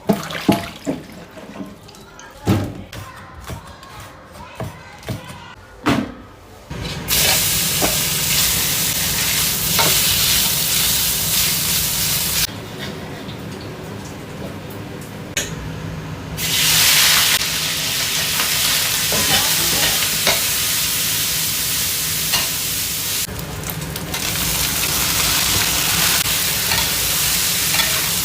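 A few scattered knocks and clicks, then about seven seconds in food hits hot oil and sizzles loudly as it is stir-fried in a pan. The sizzle eases for a few seconds and then flares up again.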